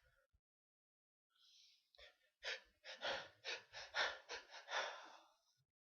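A person breathing in quick, gasping breaths, about ten in a row at roughly three a second: the catching breaths of a sneeze building up.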